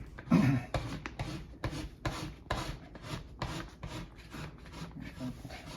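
Plastic squeegee rubbing a vinyl window decal down onto glass in quick repeated scraping strokes, about two to three a second, pressing out air bubbles.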